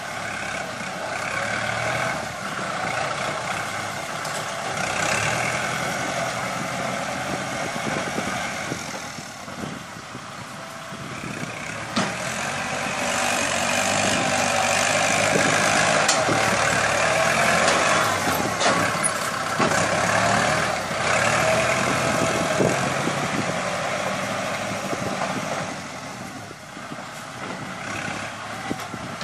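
Kubota tractor's diesel engine running under load as its front blade pushes and levels a pile of soil, the engine note rising and falling in loudness. A few short sharp knocks from about twelve seconds in.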